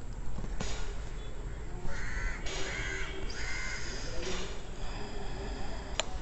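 Crow cawing, three caws in quick succession between about two and four seconds in. A light clink near the end, a metal spoon against the jam bowl.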